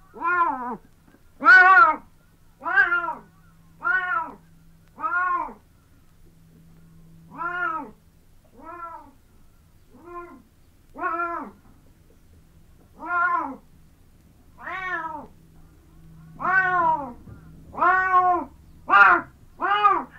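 Adult Siamese cat meowing over and over: short calls that rise and fall in pitch, about one a second, with a longer pause around six seconds in.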